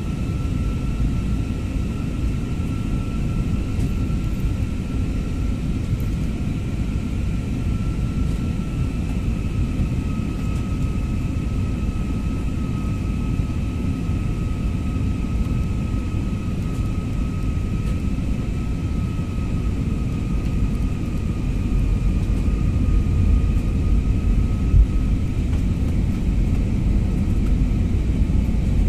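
Jet airliner cabin noise heard from a window seat on descent: a steady low rumble of engines and airflow with a faint steady whine that sags slightly in pitch. The low rumble grows louder about two-thirds of the way through.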